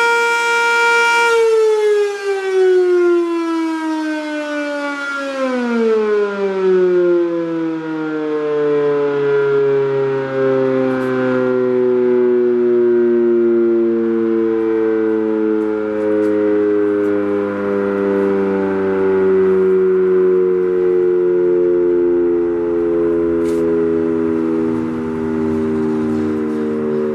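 Sentry 7V8 dual-tone mechanical outdoor warning siren holding a steady tone, then winding down from about a second in. Its pitch falls fastest around five seconds in, then glides slowly lower as the rotor coasts down.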